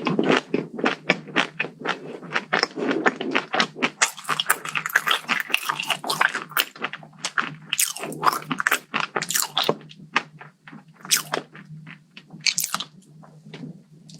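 Close-miked chewing of a crunchy kadaif-chocolate cookie: rapid, dense crunching and mouth sounds, thinning to a few louder single crunches near the end.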